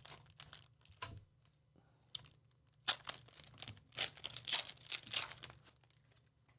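Foil wrapper of a Panini Elite Extra Edition baseball card pack being torn open and crinkled by hand. The rips and crinkles come unevenly, with a short lull and then the busiest stretch about three to five seconds in.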